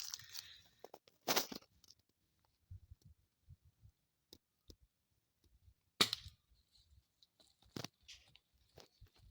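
Two sharp cracks from an air gun firing, about four and a half seconds apart, the second the louder, with faint ticks and rustles between them.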